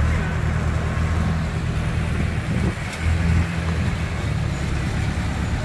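Diesel engine of an Escorts pick-and-carry crane running steadily. The engine note swells briefly about three seconds in, just after a single sharp click.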